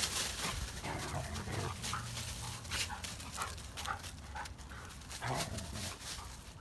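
Two Siberian huskies play-fighting on dry fallen leaves: leaves crackling and rustling under their paws, with brief dog vocalizations and panting mixed in.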